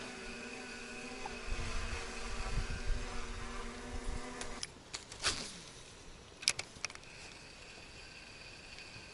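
Boat motor running with a steady hum, cut off abruptly about four and a half seconds in. A quick falling swish and a few sharp clicks follow.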